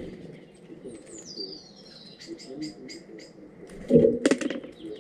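Small garden birds calling and singing: a thin descending whistle, then a quick run of about five sharp high notes. A louder clatter comes about four seconds in.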